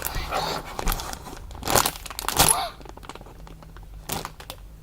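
Packaging wrapper crinkling and rustling as it is handled and pulled open. The rustling comes in several bursts over the first few seconds, then eases to a few lighter rustles.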